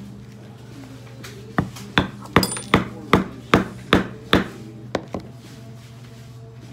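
Mallet striking a leather pricking iron to punch stitching holes through a leather card wallet on a stone slab: about ten sharp taps at a steady two to three a second, starting a second and a half in, the last two closer together.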